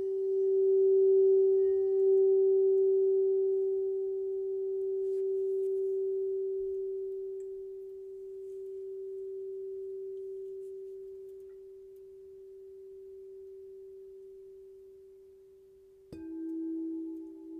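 Sound bowl ringing one long, pure tone that slowly fades with a gentle wavering swell. Near the end a second, lower-pitched bowl is struck and starts to ring.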